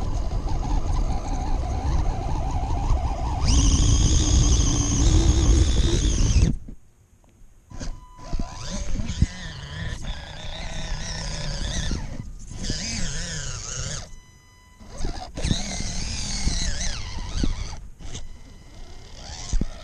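Small electric motor and gear drivetrain of a radio-controlled rock crawler whining as it drives, the pitch rising and falling with the throttle. It is loudest for a few seconds early on, then cuts out abruptly twice as the throttle is released.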